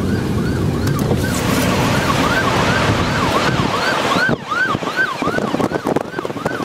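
A siren yelping, its pitch rising and falling quickly about three times a second, starting about a second in, over heavy wind and road noise.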